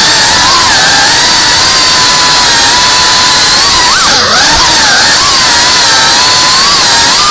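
FPV quadcopter's motors and propellers whining loudly, heard from the onboard camera; the pitch wavers up and down with throttle, dipping sharply and climbing back about four seconds in.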